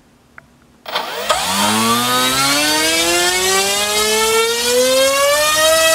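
NTM PropDrive 3536 1800 kV brushless outrunner motor spinning an 8x4 propeller on a 4-cell LiPo, starting about a second in and throttled up steadily. Its whine rises in pitch and levels off near the end at full power.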